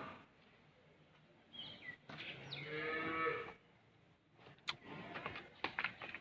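A cow moos once, a single call a little over a second long about two and a half seconds in. A few short knocks follow near the end.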